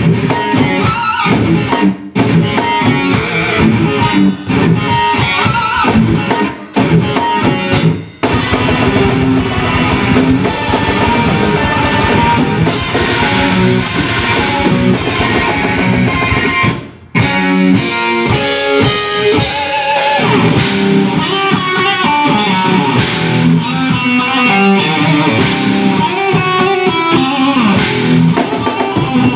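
Live technical death metal: distorted electric guitar riffing over a double-kick drum kit, in stop-start phrases with several brief full-band breaks, the clearest about 17 seconds in. The two bass drums are poorly miked, one mic inside a drum and a vocal mic outside the other, so the kicks sound like a single kick.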